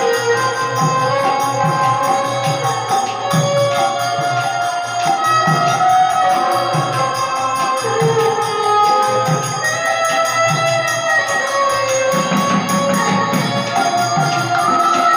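Kirtan instrumental music: a violin plays a gliding folk melody over a khol, the Bengali barrel drum, beating a steady rhythm.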